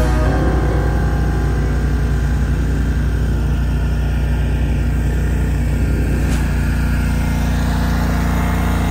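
Riding lawn mower engine running at a steady speed.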